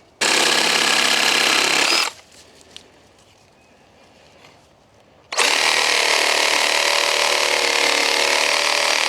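Reciprocating saw (sawzall) cutting through brush stems, run in two bursts: about two seconds near the start, then a longer run of about four seconds from past the middle, each starting and stopping abruptly.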